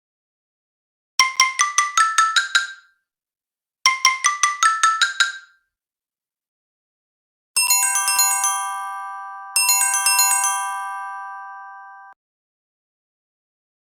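Samsung Galaxy S7 ringtone played on a Xiaomi Redmi 9 phone: a bright, mallet-like melody. Two quick runs of notes come first, then two phrases whose final notes ring on and fade, with short silences between them.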